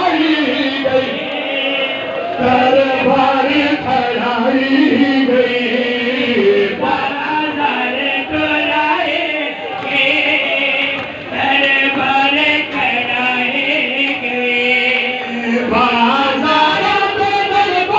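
Crowd of men chanting a mourning lament together, many voices at once, continuous and loud.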